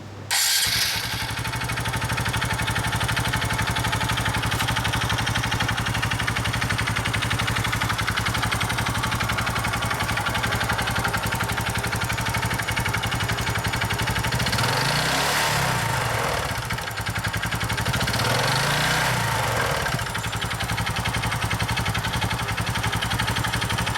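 Honda Innova ANF125i's single-cylinder air-cooled four-stroke engine idling steadily, with a chattering noise that the owner cannot identify. The engine is revved briefly twice in the second half, each time rising and falling back to idle.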